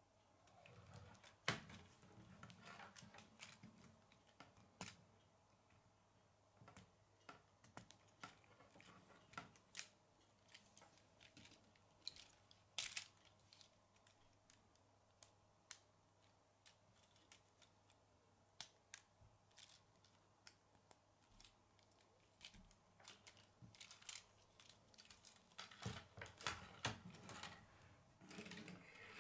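Plastic K'nex rods and connectors clicking and knocking as the model is handled and pieces are snapped together: irregular sharp clicks, busiest near the end.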